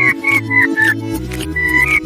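Cartoon score music: a jaunty tune of short falling notes over a walking bass line with a steady beat.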